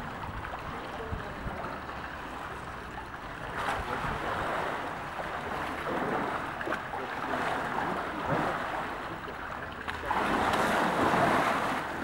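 Water jet splashing into a pool and water sloshing as a polar bear cub swims; the splashing grows louder near the end as the cub pushes under the falling stream.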